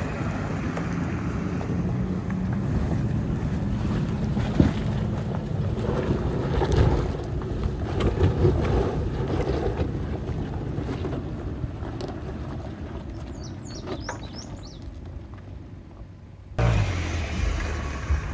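Toyota Land Cruiser's 5.7-litre V8 working at crawling speed up a rocky trail, with tyres crunching over stones and wind on the microphone. The rumble slowly fades as the vehicle climbs away, then jumps abruptly to a louder, closer vehicle rumble near the end.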